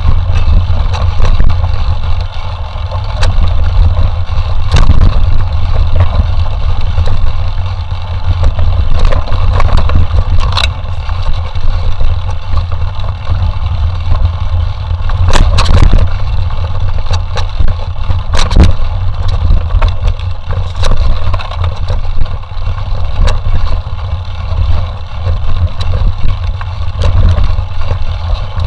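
Mountain bike ridden fast over rough forest trail, heard from a camera on the bike or rider: a steady heavy low rumble of wind on the microphone, with a few sharp knocks and rattles from bumps in the trail.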